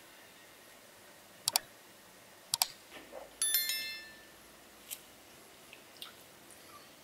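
Cutlery clinking on plates while eating: a few sharp double clicks, then about three and a half seconds in a metallic ring that dies away in under a second, followed by a couple of lighter taps.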